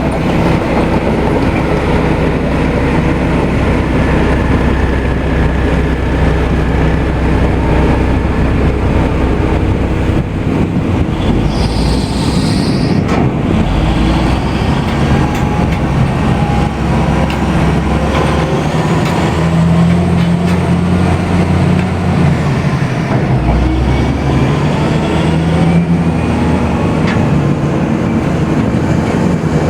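A 45-ton BELAZ mining dump truck's diesel engine running heavily, with a loud mechanical rattle. The engine note shifts several times, and there is a brief high squeal a little under halfway through.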